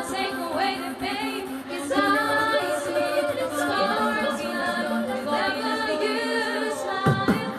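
Girls' choir singing a cappella through microphones, several voices holding sustained notes in harmony. Just before the end a new part with deep notes and sliding pitches cuts in.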